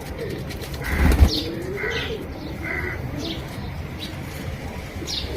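Pigeons cooing, with small birds giving short chirps over them. A burst of wing flapping about a second in is the loudest sound.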